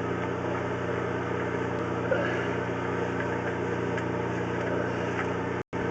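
An engine running steadily at idle, an even hum, with a momentary cutout of all sound near the end.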